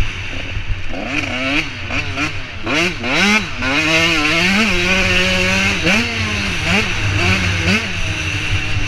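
85cc two-stroke motocross bike engine revving hard, its pitch climbing and dropping through throttle changes and gear shifts, holding steady for a couple of seconds mid-way, then dropping sharply and climbing again. Wind rush on the helmet-mounted microphone runs underneath.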